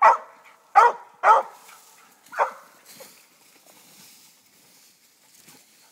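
Treeing Walker coonhound barking treed at the base of a tree with raccoons up it: four loud barks in the first two and a half seconds, then it falls quiet.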